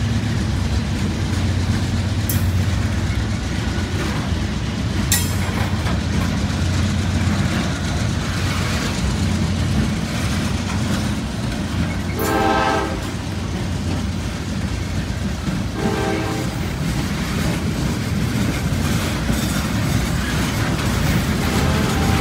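A freight train rolling past: a steady low rumble with wheel clatter from the passing boxcars and log cars, under the diesel of the GE Dash 9-40CW locomotive pulling away, which fades after the first few seconds. The locomotive's horn sounds about 12 seconds in, briefly again about 4 seconds later, and faintly near the end.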